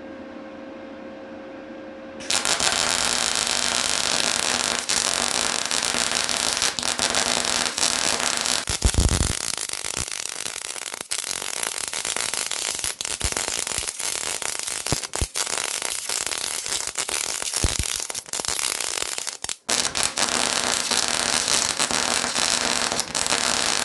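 A low steady hum, then about two seconds in a wire-feed (MIG/MAG) welding arc strikes and crackles steadily, with spatter, while the torch runs a butt seam along thin steel plate backed by a spruce board. The arc breaks off briefly a couple of times.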